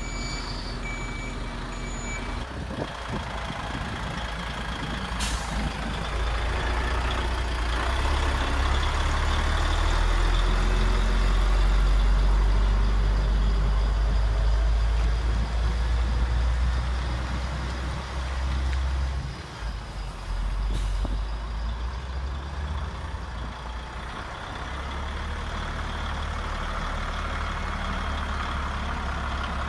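RC model truck's sound module: a reversing beeper pips for the first couple of seconds, then a deep simulated diesel engine rumble runs, swelling louder through the middle and easing off again. Two sharp clicks come in along the way.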